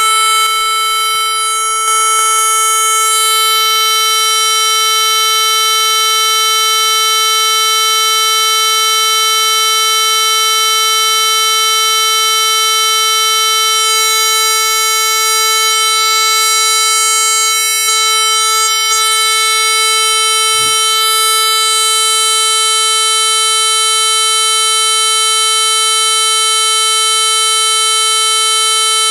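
A 440 Hz square-wave test tone played at full volume through an LG Voyager phone's small loudspeaker. It cuts in abruptly and holds as one steady, loud, buzzy tone. The speaker sounds distorted, like a blown speaker, and is being driven hard enough to heat up.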